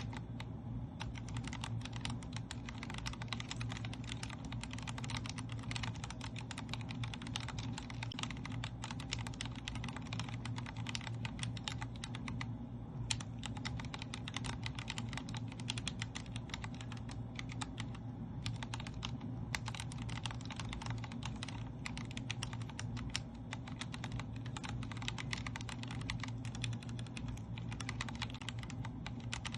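Continuous fast typing on a Vortex Core 40% mechanical keyboard with linear Cherry MX Speed Silver switches: a dense run of keystroke clacks with brief pauses, over a steady low hum.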